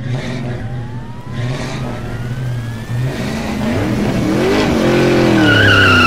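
Car sound effect for an animated logo: an engine revving with a rising whine over the first three seconds, then swelling and falling in pitch, with a tyre screech starting near the end.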